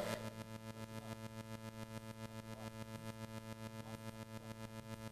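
Faint electrical buzz from the landed quadcopter's electronics, picked up by its onboard camera: a steady pitched hum that pulses rapidly, about nine times a second.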